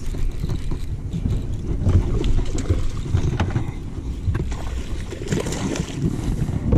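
Wind buffeting the microphone over a baitcasting reel being cranked in scattered clicks. A hooked bass splashes at the surface near the end.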